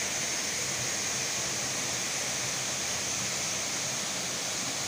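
Waterfall rushing steadily down a rock face, an even, unbroken roar of falling water.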